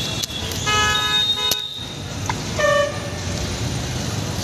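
Vehicle horns honking twice over steady road traffic noise: a longer honk about a second in and a shorter one a little before three seconds, with a sharp click between them.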